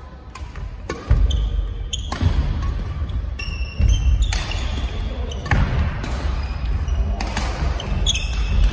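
Badminton rally on a wooden gym floor: rackets strike the shuttlecock with sharp cracks every second or two, and shoes squeak briefly on the floor, with echo from the hall. A steady low rumble comes in about a second in and continues under it.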